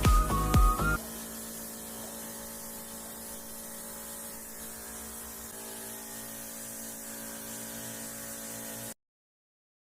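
Background music stops about a second in, leaving a steady faint electrical hum with hiss, which cuts off to dead silence near the end.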